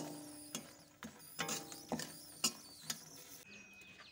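Metal spatula scraping and knocking against a steel wok while stirring dried red chillies frying in oil, with a clink about twice a second and the wok ringing briefly after each.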